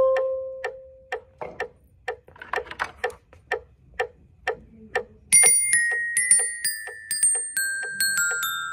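A metronome clicks steadily about twice a second. A struck mallet note rings out at the start, and there is a brief rustle of cloth close to the microphone. From about five seconds in, a glockenspiel struck with hard mallets plays bright ringing notes in time with the clicks, stepping downward.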